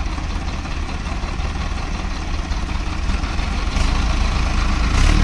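Diesel tractor engine running at a low, steady idle, getting louder toward the end.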